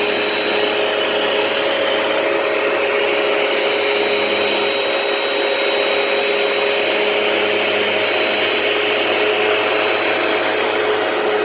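Hoover PowerDash carpet cleaner running steadily: a loud motor hum with a faint high whine over the hiss of its suction.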